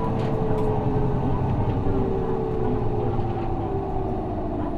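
Isuzu 6HK1 six-cylinder diesel of a city bus heard from inside the cabin, running steadily under way, with a whine that slowly falls in pitch.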